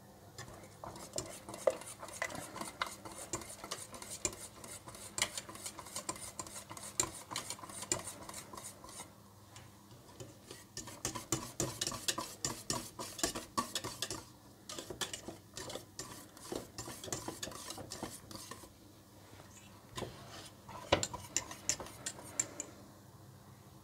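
Wire balloon whisk stirring thick, just-boiling milk pudding in a stainless steel pot, the wires rapidly clicking and scraping against the metal. The whisking comes in quick runs broken by a few short pauses.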